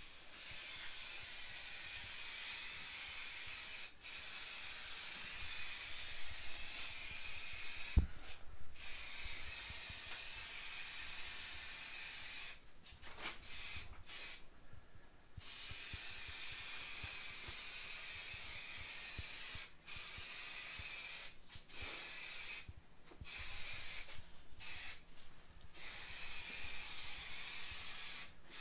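Aerosol spray-paint can hissing in long, steady passes, broken by short pauses that come more often in the second half as it is sprayed in shorter bursts. One brief knock about a third of the way in.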